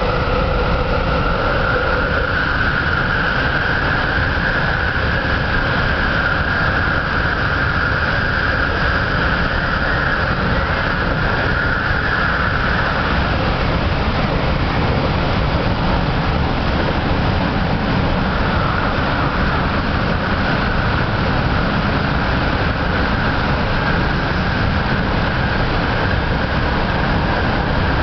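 MTR MLR electric multiple unit train heard from inside a passenger car while running at speed, with a steady heavy rumble of wheels on rail. Over it a high whine rises slightly, fades about halfway through and comes back later.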